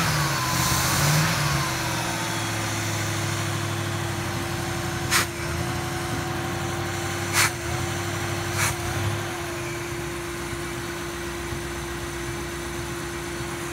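1971 Triumph Stag V8 running just after a cold start: a brief rise and fall in revs at the start, then a steady fast idle. Three sharp clicks come in the middle, and the engine note grows a little quieter from about nine seconds in.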